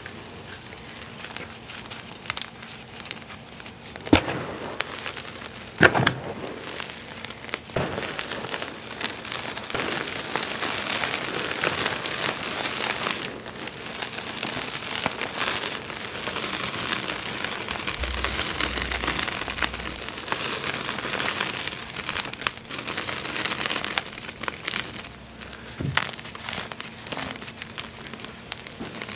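Hands crumbling and sifting crushed gym chalk, a gritty, powdery crunch and crackle. A few sharper cracks come about four and six seconds in and again near the end, and the crumbling is densest through the middle.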